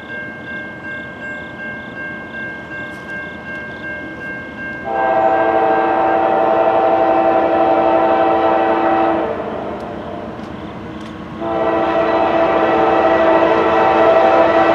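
Railroad grade-crossing bell ringing steadily as a train approaches. About five seconds in, the locomotive's air horn sounds a long chord-like blast for about four seconds, then a second long blast begins shortly after it stops, the loudest sound here, as the train nears the crossing.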